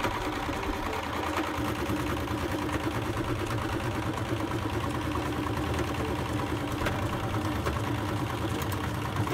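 Electric domestic sewing machine running steadily at speed, its needle stitching a seam through a folded towel. It stops right at the end.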